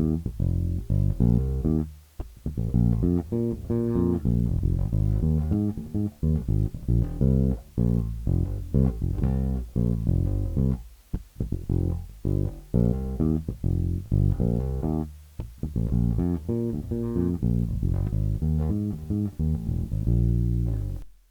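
Squier Precision electric bass, fitted with DiMarzio pickups and an active circuit, played solo: a run of plucked notes and riffs with a few short breaks, ending on a held note that fades out.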